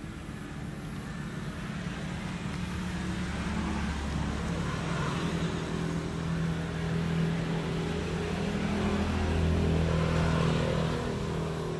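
A motor vehicle's engine running, its low hum swelling over several seconds and easing off near the end.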